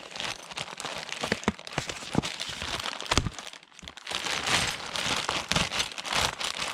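Crinkling and rustling of plastic being handled, with scattered sharp clicks.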